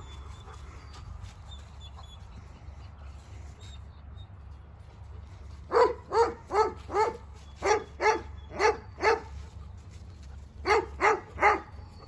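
A dog barking in short, quick bursts: eight sharp barks about two a second past the middle, then three more near the end.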